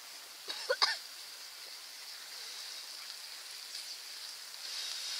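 Slices of meat sizzling in a frying pan over campfire embers, a steady hiss that swells slightly near the end. A few sharp sounds come close together less than a second in.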